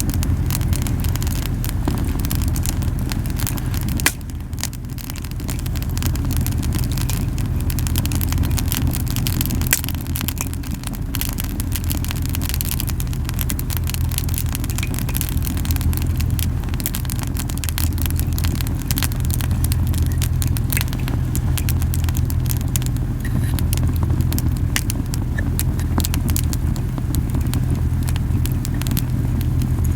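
Campfire of camellia wood crackling with frequent sharp pops, over a steady low puffing rumble from the flames, strong because the fire is burning very hot. One sharp pop about four seconds in.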